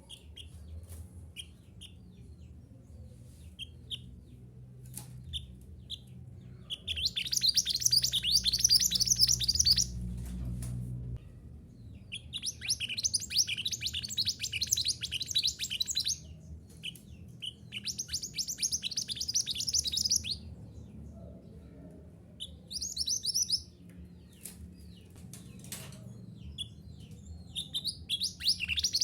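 Mantenan gunung singing: rapid, high-pitched twittering phrases of a few seconds each, with short pauses marked by single chirps. The song runs from about a third of the way in and comes back four more times, with a faint low hum underneath.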